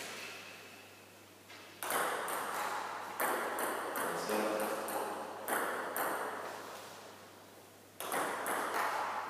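Table tennis rally: the ball clicks sharply off the paddles and the Tibhar Smash 28 table in quick succession, each hit ringing on in the echo of a sports hall. A single hit comes at the start, the rally of rapid hits runs from about two seconds in, and after a short lull more hits come near the end.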